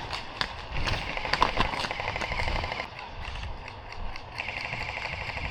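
Airsoft electric gun (AEG) firing full-auto bursts: a fast, buzzing rattle, twice, the second starting about four and a half seconds in.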